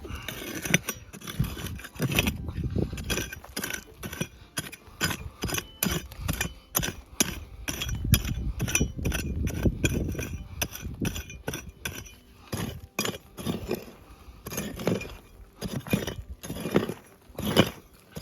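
Digging into hard, stony ground with a hand digging tool: a run of irregular strikes and scrapes, with stones clinking against the metal, as a detected gold target is dug out.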